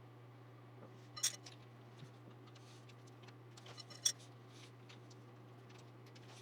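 PC hardware being handled: two sharp metallic clicks about three seconds apart, with a few faint taps around them, over a steady low hum.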